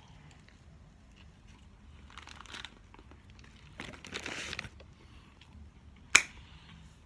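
Food wrapper crinkling as it is handled, briefly about two and a half seconds in and for about a second near the middle, amid small mouth clicks from eating. A single sharp click or tap comes about six seconds in and is the loudest sound.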